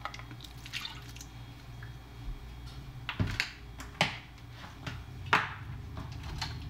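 Mirin poured from a measuring spoon over raw shrimp in a stainless steel bowl, followed by a few short clicks and knocks of the bottle and spoon being handled and set down, the loudest about three, four and five and a half seconds in, over a low steady hum.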